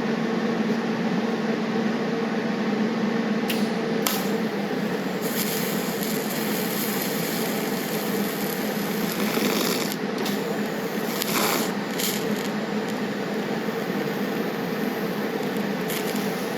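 Welding nuts onto a steel clamp: a steady hiss and crackle over a constant electrical hum, growing sharper for a few seconds in the middle.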